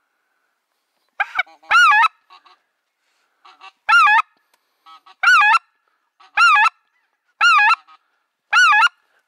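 Goose call blown to lure geese: a string of loud honks with a wavering rise and fall in pitch, each alike, about one every second and a bit, starting about a second in, with a few faint short calls between them.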